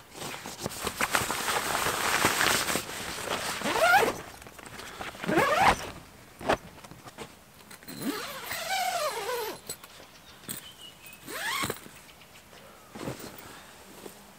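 Tent door zipper being pulled along the canvas: one long rasp, then several shorter pulls whose pitch slides up and down with the speed of the slider.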